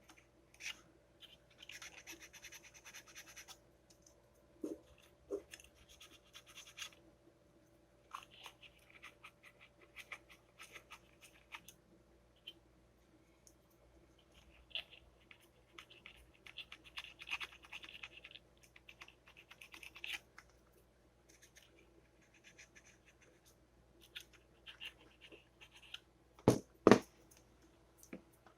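Fine sandpaper rubbing in short scratchy spells on a toaster's metal switch contacts, sanding off black oxidation that keeps the power contact from closing. A few sharp knocks near the end.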